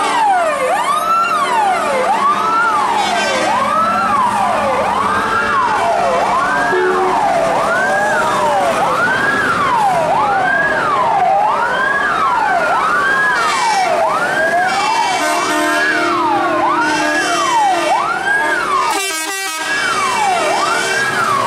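Several fire-truck sirens wailing at once, each sweeping up and down in pitch about once a second and out of step with the others, so the wails overlap continuously. The sound dips briefly near the end.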